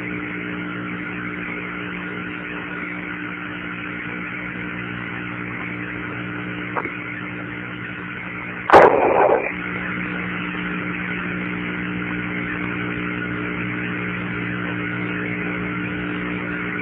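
Open Apollo air-to-ground radio channel between transmissions: a steady hiss with a low multi-tone hum, a faint click about seven seconds in, and a brief loud crackle of static about nine seconds in.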